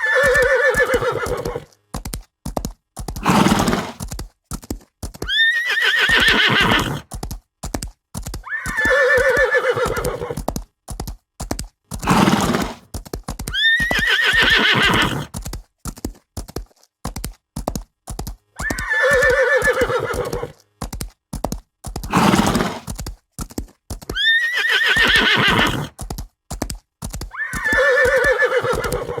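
Horse sound effects played on a loop: repeated quavering neighs, each followed by a shorter, lower snort-like sound, over a steady run of hoofbeats. The same sequence comes round about every ten seconds.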